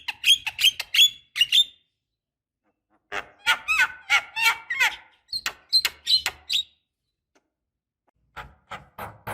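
Javan myna calling in quick runs of harsh, squeaky, chattering notes. The calls come in three bursts with short pauses between them.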